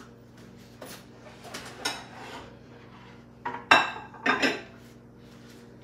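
Dishes and cutlery clattering and clinking, a handful of separate knocks with the loudest pair about four seconds in, over a steady low hum.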